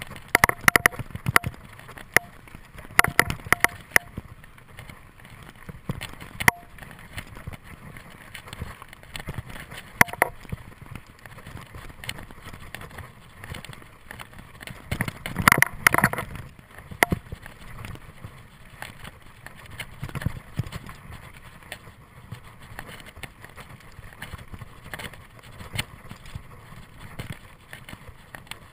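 Mountain bike riding fast over a dirt singletrack: a steady rumble of tyres on dirt, broken by many sharp clatters and knocks as the bike hits bumps, with the busiest bursts about half a second in, around three seconds and around fifteen to sixteen seconds.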